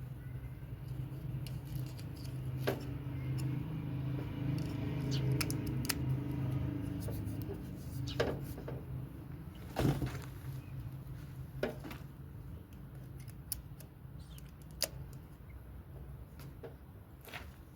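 Handling noises from unpacking: scattered clicks and knocks of objects being moved and set down, with a low hum in the first half.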